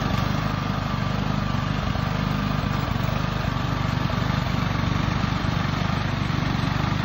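Walk-behind snowblower's small gas engine running steadily under load as it clears snow.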